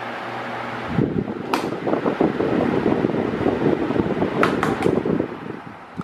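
Mondial Maxi Power 40 cm 140 W table fan running with a steady hum. About a second in, its airflow turns onto the microphone and buffets it with a rough, louder rumble, with a few sharp clicks. The rumble fades near the end.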